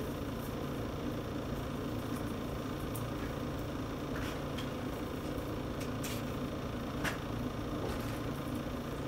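Steady low background hum, with a few faint light clicks as the airsoft pistol and its plastic hard case are handled.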